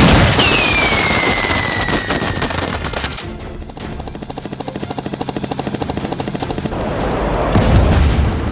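Sound-effect gunfire: a sudden loud blast at the start with a whine falling away over about two seconds, then a fast, even burst of automatic fire, over background music.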